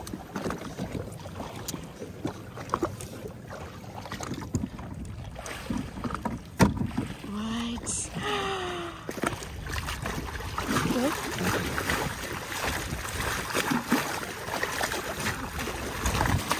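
Water splashing and slapping against the hull of a Sea-Doo Trophy fishing jet ski, with a hooked sailfish splashing alongside. A sharp knock about six and a half seconds in.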